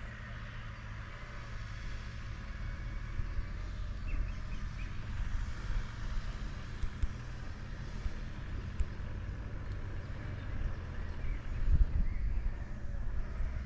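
Off-road vehicle engine running steadily at low revs, with a low rumble that swells briefly near the end.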